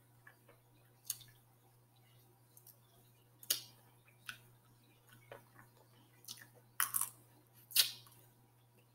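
Snow crab legs being cracked and picked apart by hand, with quiet chewing: a handful of separate sharp cracks and clicks of shell, loudest about three and a half seconds in and near the end.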